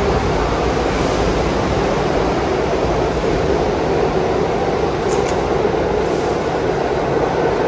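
New York City subway train running through the station, a steady loud rumble of wheels on the rails, with a brief high squeak about five seconds in.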